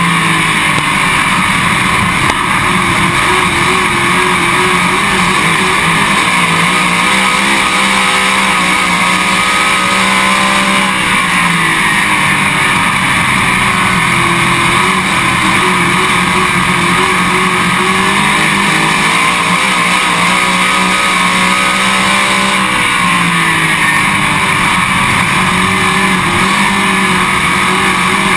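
Late model race car's V8 engine running hard at racing speed, heard from the car itself, its pitch sagging and climbing back about every ten seconds through the corners.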